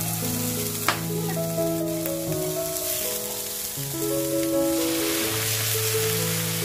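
Salted squid pieces with sliced shallots and garlic sizzling in hot oil in a frying pan as they are stirred with a wooden spatula, with a single knock about a second in. Background music of held notes plays throughout.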